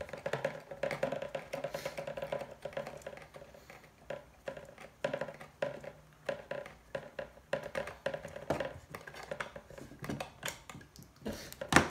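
Irregular light clicks and taps of fingers handling a GoPro Hero6 action camera and tapping its touchscreen, with a sharper click near the end.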